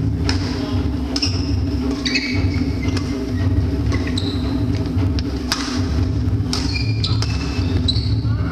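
Badminton rally: sharp racket-on-shuttlecock hits about once a second, mixed with short high squeaks of sneakers on the court floor, over a steady low hum in a large hall.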